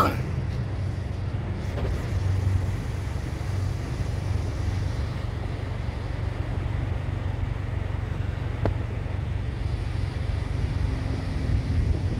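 Steady low outdoor rumble of the open air, with one short click about eight and a half seconds in.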